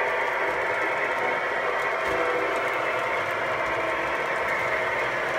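Polar Express electric model train running around its track: a steady mechanical whirr of the motor and the wheels on the rails.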